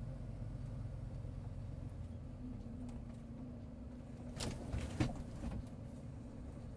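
Vehicle engine running with a low rumble while rolling slowly over a rough dirt track, heard from inside the cab; about four and a half seconds in comes a brief rattle with a sharp knock.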